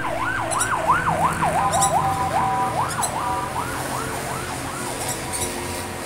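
Emergency vehicle siren sweeping rapidly up and down, about three times a second, then switching to a choppier pattern and fading toward the end.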